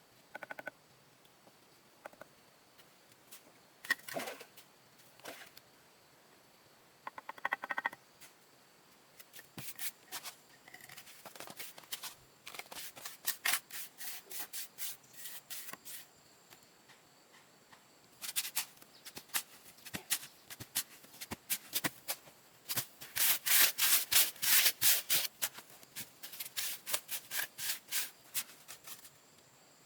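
Runs of quick, scratchy rubbing strokes with pauses between them, the loudest and densest run a little past two-thirds of the way through.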